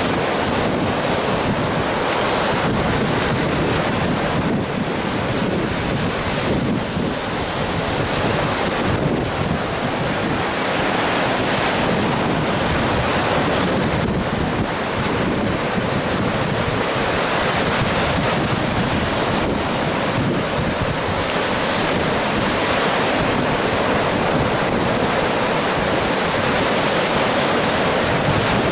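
Baltic Sea surf breaking and washing up a sandy beach, a steady rush of waves, with wind blowing across the microphone.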